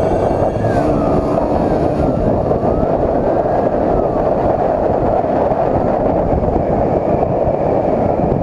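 Police patrol motorcycle riding fast in a pursuit, heavy wind roar on the camera over the engine as it speeds up to about 100 km/h. A siren wails slowly up and down underneath.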